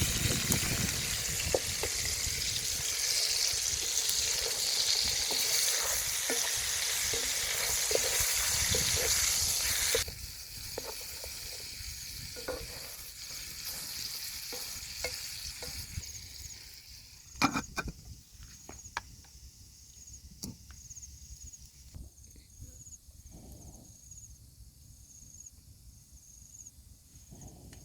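Food sizzling in a hot pan while it is stirred, with utensil clicks against the pan. The sizzle cuts off abruptly about ten seconds in, leaving scattered clicks and knocks.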